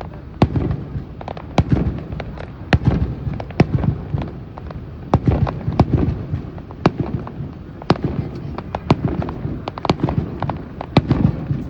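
Fireworks display: a steady run of sharp cracks and booms, one or two a second, over a continuous low rumble of bursting shells.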